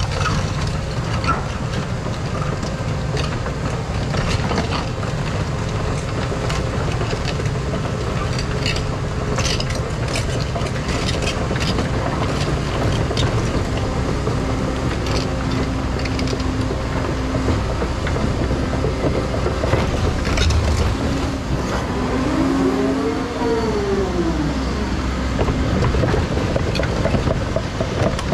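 Caterpillar 335 Next Gen excavator's diesel engine running under load, with scattered knocks and scrapes of rock. A hydraulic whine sets in about halfway through and swells up and back down near the end.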